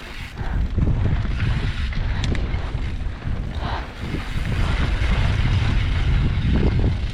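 Wind buffeting the microphone of a mountain biker's camera during a descent, a heavy low rumble that builds about a second in and stays strong, mixed with tyre and trail noise and a few faint clicks.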